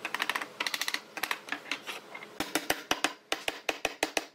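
Claw hammer driving nails into pine boards: quick light taps in the first second, then a steady run of harder strikes, about five a second, in the second half.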